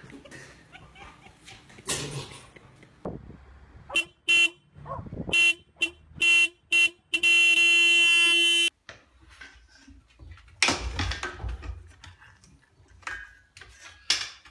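Car horn of a parked SUV sounded by a dog sitting in the driver's seat: about six short toots, then one long steady blast of about a second and a half.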